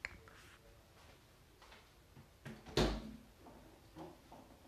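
Light clicks and knocks from objects being handled on a wooden tabletop, the loudest a single sharp knock a little under three seconds in.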